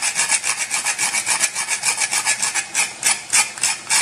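Whole nutmeg being grated on a metal grater: rapid rasping strokes, about eight a second, slowing to a few slower, separate strokes near the end.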